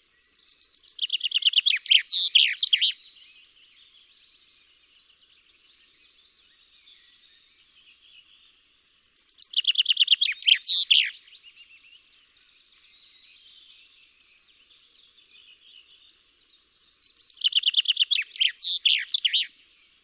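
Common chaffinch singing three songs about eight seconds apart. Each is a quick run of notes that steps down in pitch and finishes in a short flourish, the typical 'di-di-oo' ending.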